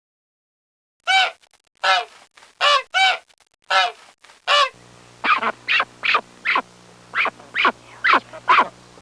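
Geese honking: after a second of silence, a series of loud, separate honks; then, in a second recording, quicker honks that fall in pitch over a low steady hum.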